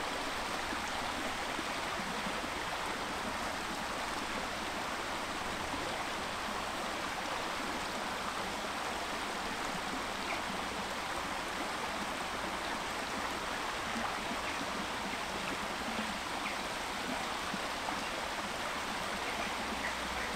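The River Dove, a shallow river, running over rocks in small riffles: a steady sound of flowing water.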